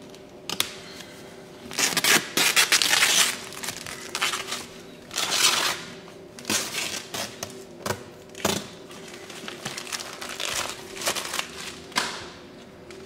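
Excess clear paint protection film peeled off and crumpled by hand, in irregular rustling, crinkling bursts, over a faint steady hum.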